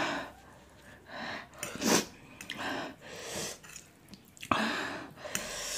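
Several sharp breaths, sniffs and hisses from a mouth burning with very spicy fire noodles, with some chewing between them.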